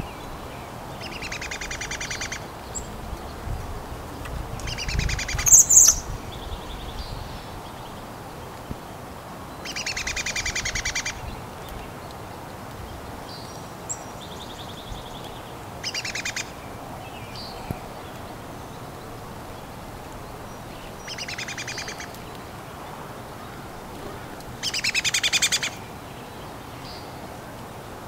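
A songbird singing a short, rapid trill about a second long, repeated six times a few seconds apart, with faint single chirps in between; the phrase about six seconds in ends in a sharp high note, the loudest sound.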